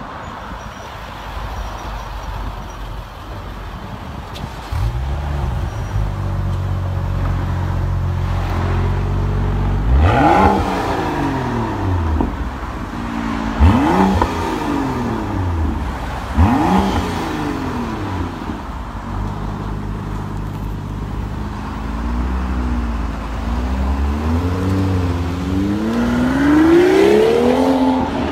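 BMW X6 35i's 3.0-litre turbocharged straight-six, breathing through an Fi valved catback exhaust with a catless downpipe. It starts cold about five seconds in and settles to a fast cold idle, then is revved in three quick blips that climb and fall away. Near the end the car pulls away and accelerates hard, its pitch rising steadily.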